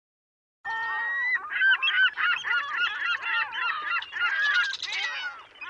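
A flock of birds honking, many calls overlapping at once, starting suddenly about half a second in.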